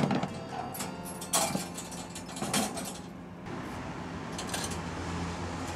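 Wire pet cage rattling: a sharp metallic clink at the start, then three lighter jangles of wire about a second apart, over a low steady hum.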